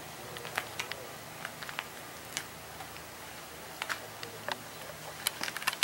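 Scattered light clicks and ticks from someone moving about and handling the camera, irregular, with a quick run of them near the end, over a faint steady low hum.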